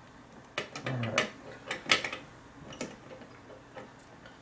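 Lockwood lock cylinder handled in a metal bench vise: a few short metal clicks and clunks, the sharpest about two seconds in.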